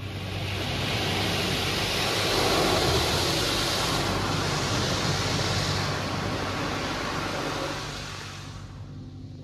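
Car wash equipment working over the vehicle: a loud, even rushing hiss that swells in over the first second and dies away near the end, with a low steady hum underneath.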